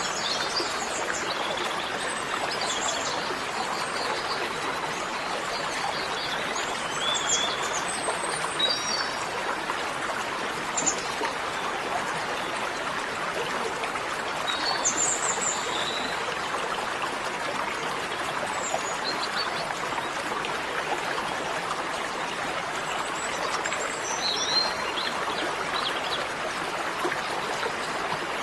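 Steady running water like a stream, with scattered short bird chirps through it.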